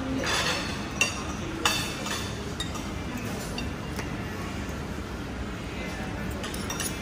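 A fork clinking on a plate, two sharp clinks about a second in and a few fainter taps after, over steady background noise.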